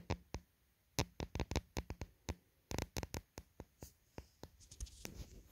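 Quick, irregular clicks and taps of small plastic toy figures being handled and knocked against a board, some in close clusters.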